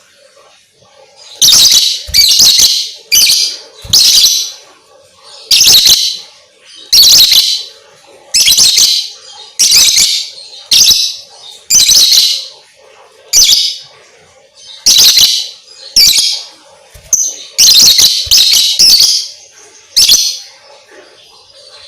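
Lovebird calling in a string of loud, shrill chirping bursts, each about half a second long, roughly one a second.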